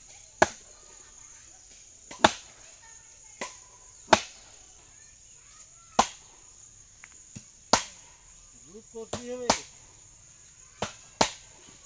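A heavy wooden mallet pounding bamboo poles into the ground: sharp, loud knocks every second or two, about eight in all. A man's short call is heard about nine seconds in.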